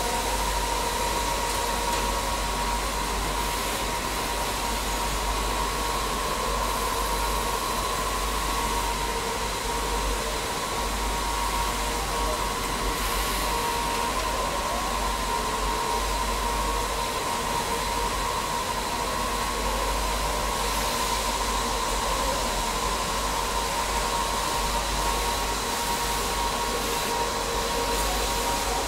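Steady whirring machine noise with a constant hum and a low rumble underneath, typical of knitting machinery and fans running.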